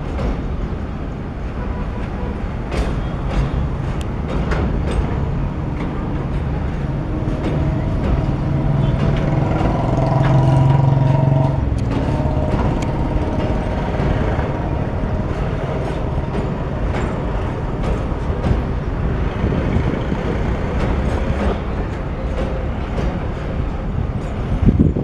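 Container freight train wagons rolling past over a steel girder railway bridge: a steady rumble with scattered clacks from the wheels. A faint whining tone rises out of it for a few seconds around the middle, while the rumble is at its loudest.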